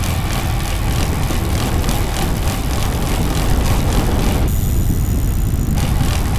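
Wind rushing over a camera's microphone as a road bicycle rolls fast along the street, with a heavy low rumble under a steady hiss. The hiss drops out for about a second just past the middle.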